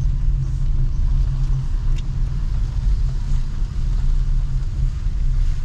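Street sound in heavy rain: a steady low rumble with a faint hiss above it, and one brief click about two seconds in.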